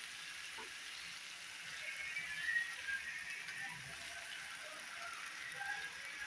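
Onions, tomatoes and green chillies frying in hot oil in a pan, a steady sizzle, with soft background music over it.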